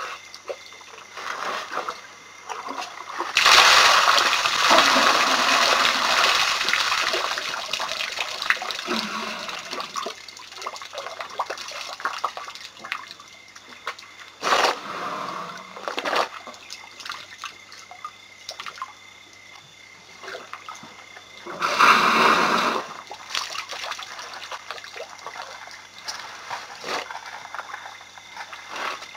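Elephants drinking at a waterhole: water splashing and sloshing in irregular bursts. The longest and loudest run from about three to nine seconds in, with another strong splash just past twenty seconds.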